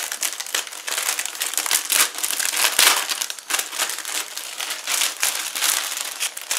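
Clear plastic bag packaging crinkling continuously as it is handled and pulled open, with many small sharp crackles.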